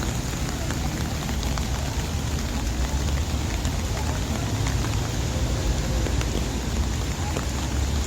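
Steady rain with scattered raindrop ticks, over a constant low rumble.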